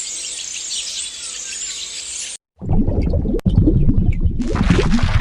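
A dense chorus of many small birds chirping high and fast, cut off after about two seconds. After a brief gap comes a different, louder low rumbling noise from an unidentified source.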